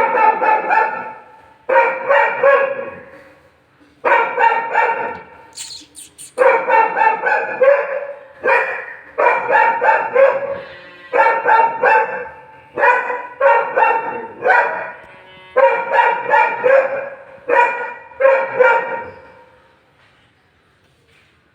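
Dobermans barking in repeated bursts of one to two seconds, about a dozen bursts in all, stopping near the end.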